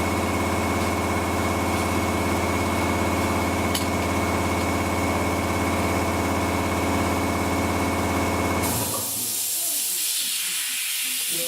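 Steady mechanical hum with a thin high whine, which cuts off abruptly about nine seconds in and gives way to a hiss of rushing air.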